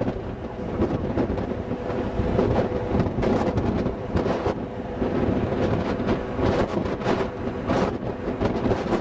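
Wind gusting on the microphone on a moving ferry's open deck, over the steady low rumble of the ship's engines.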